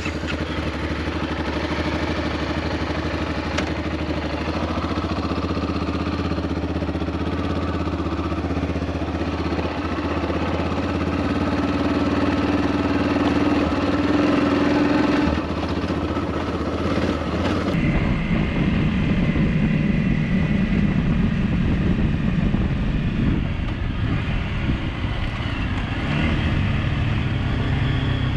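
Single-cylinder dual-sport motorcycle engine running at riding pace on a dirt track, with surface and wind noise. About two thirds of the way in, the sound changes abruptly to a second bike's engine.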